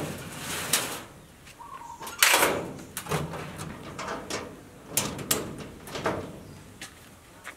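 Cabinet doors knocking and scraping as they are swung shut, a series of separate knocks with the loudest about two seconds in, then lighter metal clicks of a padlock being put on the door hasp near the end.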